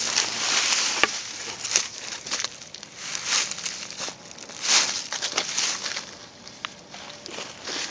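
Dry leaves rustling and crunching underfoot in uneven bursts, with a couple of sharp ticks about a second in.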